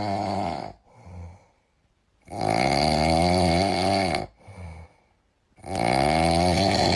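Loud snoring: three long snores, the middle one the longest, each followed by a shorter, quieter breath out.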